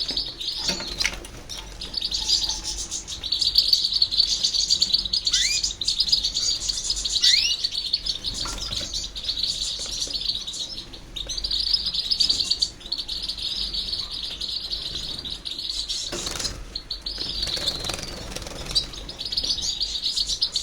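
Goldfinch × canary hybrid (mule) singing: a long, rapid twittering song in phrases of a few seconds with short breaks, and a brief rustle about three quarters of the way through.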